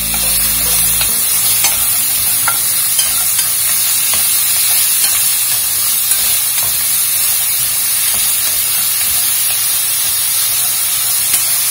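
Diced white onion frying in hot oil in a stainless steel pan: a steady sizzle, with scattered clicks of chopsticks stirring against the pan.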